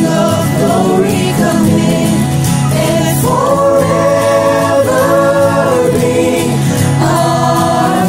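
A mixed group of voices singing a worship song in harmony, holding long notes, over acoustic guitar, electric guitar and keyboard.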